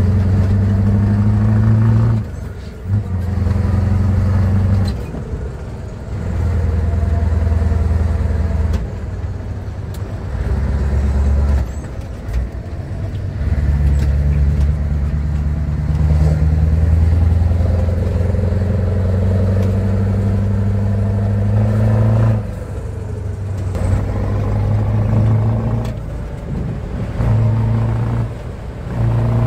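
Scania V8 truck engine, heard from inside the cab, pulling under throttle. Its note drops away and picks up again several times, around two, five, eleven, twenty-two and twenty-seven seconds in.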